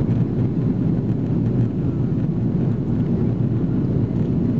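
Steady low rumble of an Airbus A330-300's Rolls-Royce Trent 700 engines and rushing airflow, heard inside the passenger cabin as the airliner climbs out after takeoff.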